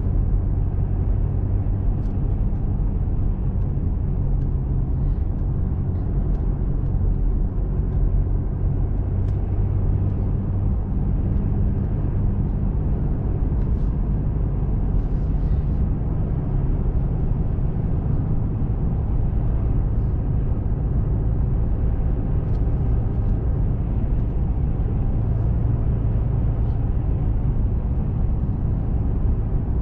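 Steady engine hum and tyre noise of a car cruising on the road, heard from inside the cabin.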